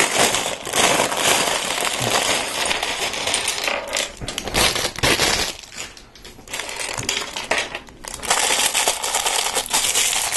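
Plastic parts bag of Lego pieces crinkling as it is opened, and small plastic bricks clattering out onto a tabletop. The noise eases off briefly in the middle.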